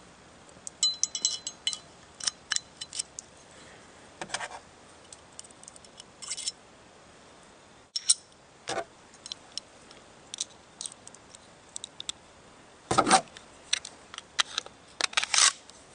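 Irregular small metallic clicks and scrapes of Glock 17 slide parts being handled and fitted back together by hand, with a louder knock about two-thirds of the way through.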